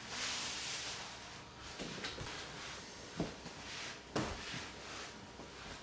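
Slow footsteps on an indoor floor, three low thumps about a second apart, as a person walks forward against the drag of an Isorobic rope exerciser. A soft hiss runs in the first second and between the steps.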